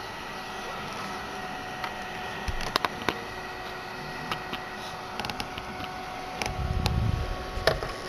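Steady hum of a small fan running, with a few light clicks and a short low bump near the end.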